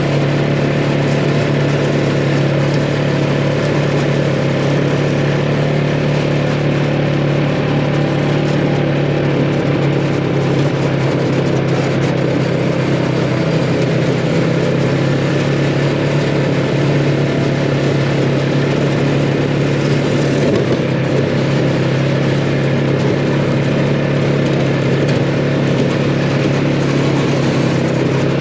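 Arctic Cat 500 ATV's fuel-injected single-cylinder engine idling steadily, running again now that its dead battery has been charged.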